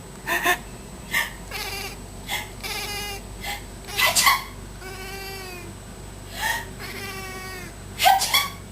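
Domestic cat grumbling in drawn-out, wavering meows, its annoyed reaction to a person's fake sneezes. Short, sharp sneeze-like bursts come between the calls, the loudest about four seconds in and near the end.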